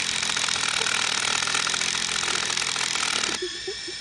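A power tool running under load with a rapid hammering rattle, then running lighter with a steady whine for its last half second.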